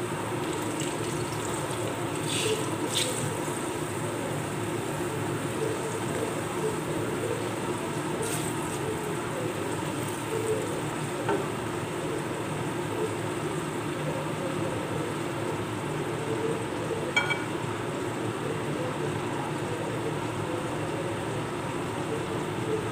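Sweet potato slices frying in oil in a pan, a steady sizzle with a few brief taps and scrapes as a spatula turns them.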